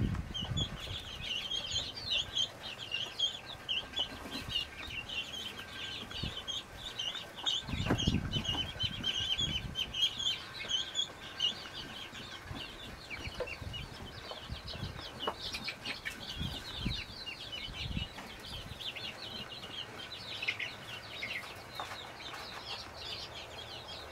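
Muscovy ducklings peeping: a dense stream of short, high chirps that thins out after about halfway, with a few low thumps around eight seconds in.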